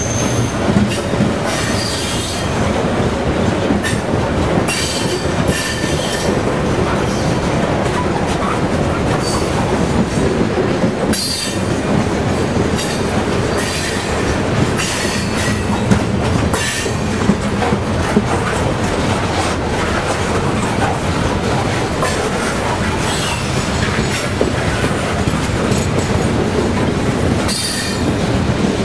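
Coal train's freight cars rolling steadily past close by, the wheels clattering over the rail joints, with short high-pitched squeals from the wheels every few seconds.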